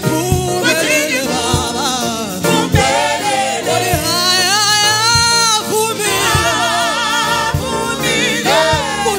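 Gospel choir singing with a wavering lead voice over band accompaniment and a steady drum beat.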